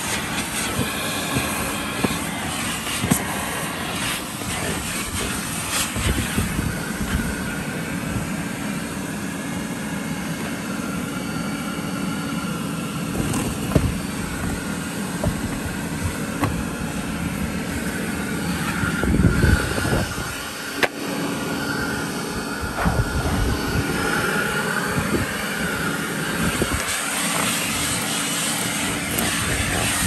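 1969 Electrolux Model 1205 canister vacuum running steadily, its motor and suction heard through the hose as a round dusting brush is worked over car floor carpet. Irregular scrubbing surges and a few sharp knocks of the brush and wand lie on top of the steady motor sound.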